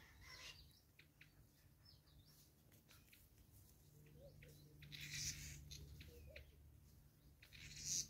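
Faint outdoor birdsong: a few short wild-bird chirps and soft ticks, with two brief rustling bursts about five seconds in and near the end.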